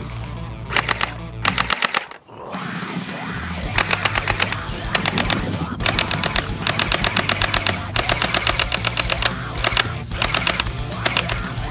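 Rapid automatic fire in repeated bursts of fast, evenly spaced shots, over background music.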